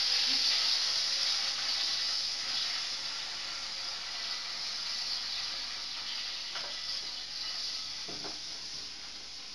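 Stuffed pork pockets sizzling in a frying pan with the hob just switched off, the hiss slowly dying down.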